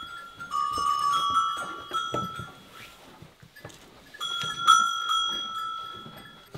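Kemençe (Black Sea fiddle) playing long held bowed notes that step between a few pitches, in two phrases with a pause between, over soft low knocks.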